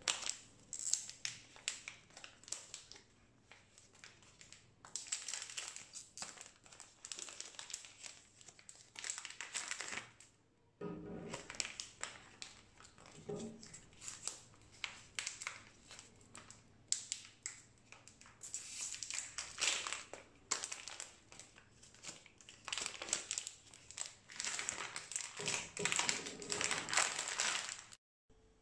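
Thin clear plastic bags crinkling as Epson 103 ink bottles are pulled out of them and handled, in irregular bursts with a short lull partway through. The crinkling cuts off suddenly just before the end.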